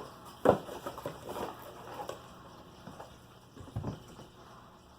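A boxed Funko vinyl figure being handled: a sharp knock about half a second in, light tapping and rustling, then a couple of duller knocks near the end.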